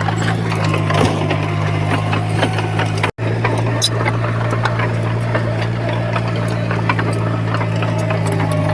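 Heavy construction machine's diesel engine running steadily, with scattered clanks and knocks over it. The sound cuts out for an instant about three seconds in.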